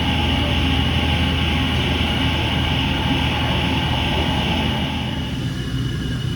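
Hurco CNC milling machine running: a steady low hum under a high whine, with the rougher mid-range noise easing off about five seconds in.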